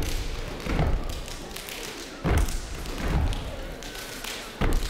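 Step team stepping in unison: about five heavy foot stomps on the stage floor at uneven spacing, with lighter, sharper claps and slaps between them.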